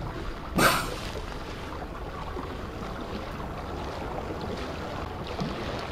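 Calm sea water lapping among floating ice, with a steady hiss of wind and a brief splash about half a second in.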